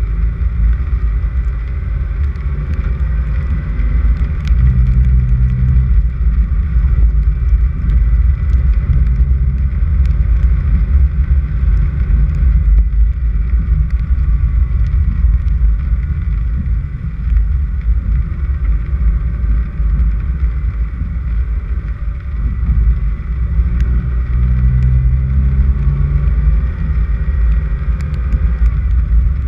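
Car driving on a dirt road: a steady low rumble of engine, tyres and wind on the microphone, with the engine note stronger twice, about five seconds in and near the end.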